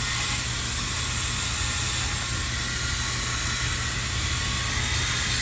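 Small power tool cutting into an ice block, a steady hiss with a faint high whine as the template design is etched in.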